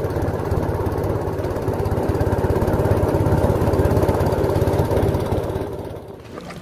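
Motorboat engine running steadily at cruising speed, a dense even drone, fading away near the end.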